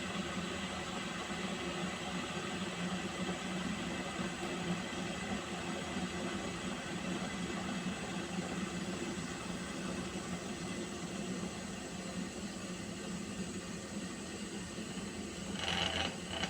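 Water heating toward the boil: a steady hiss with a low hum under it, and a brief louder burst near the end.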